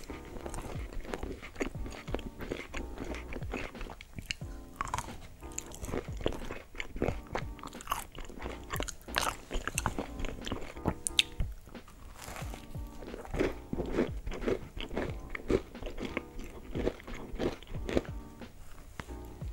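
Close-miked crunching, biting and chewing of chocolate-coated sweets and cookies, many sharp crunches in quick succession, over steady background music.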